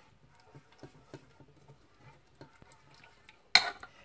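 Kitchen cookware handled on a stovetop: faint small knocks and scrapes, then one sharp, loud clatter of a saucepan or utensil with a brief ring about three and a half seconds in.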